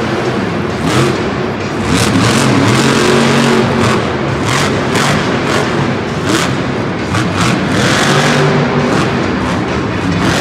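Monster truck's supercharged V8 engine revving up and down as the truck drives and jumps over the dirt ramps.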